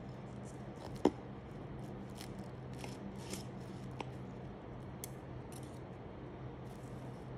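Fork and knife cutting through the crisp puff-pastry layers of a Napoleon cake: scattered short crackles and crunches, with one sharp click about a second in. A steady low hum runs underneath.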